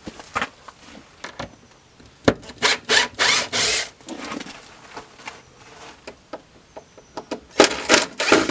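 Short scraping and rubbing strokes of hand tools working a part loose on an OMC stern drive's aluminum intermediate housing, in a cluster about two seconds in and again near the end.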